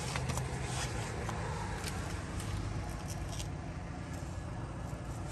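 An engine idling steadily with a low hum, with a few light clicks and knocks in the first few seconds.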